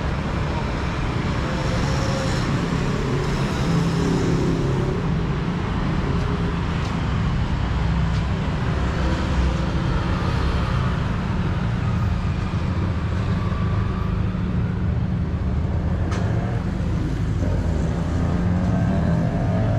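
Road traffic: motor vehicle engines running close by in a steady low rumble, with one engine beginning to rev up right at the end.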